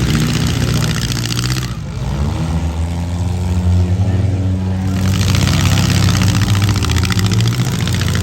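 Four-cylinder demolition derby cars' engines revving hard, several at once, their pitch rising and falling.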